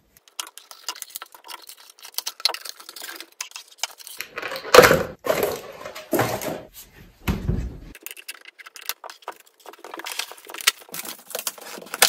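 Unboxing noise: cardboard packaging and plastic wrap rustling and crinkling as a toy cauldron is handled and pulled from its box, with many small clicks and three heavier thumps around the middle.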